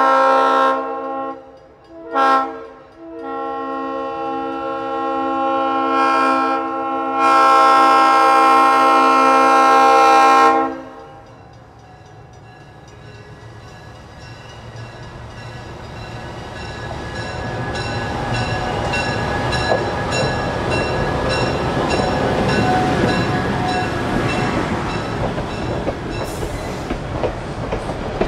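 Leslie RS-5T five-chime horn on a GE 44-ton diesel locomotive sounding a series of blasts, the last one long and loud, ending about ten seconds in. Then the train rumbles past, growing louder, with wheels clicking over rail joints.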